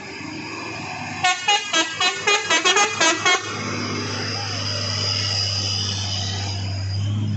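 Hino dump truck's horn sounded in a quick run of about ten short blasts whose pitch changes from blast to blast, like a little tune, followed by the truck's diesel engine running steadily as it passes close by.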